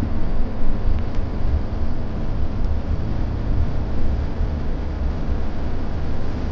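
Hyundai Universe Xpress Prime coach under way, a steady low rumble of engine and road noise heard from inside the cabin.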